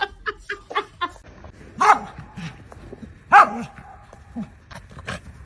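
A dog barking twice, about a second and a half apart, with quieter short sounds between the barks.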